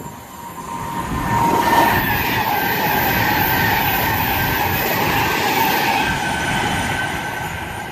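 A Class 390 Pendolino electric train passing through the station at speed without stopping. The rush of wheels and air builds about a second in, holds steady with a faint whine, and eases off near the end.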